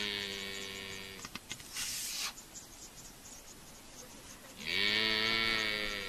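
Cape buffalo bellowing in distress: two long, low calls, each with a short rise in pitch at the onset before holding steady. The first fades out about a second in, and the second starts near the end. A brief burst of noise comes about two seconds in.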